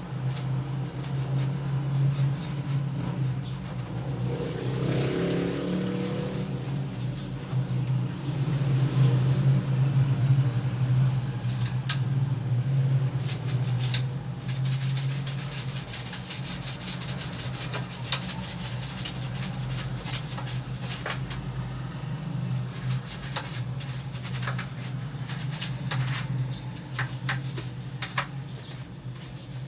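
A stiff brush scrubbing and scratching over the air conditioner's parts in short irregular strokes, over a steady low hum.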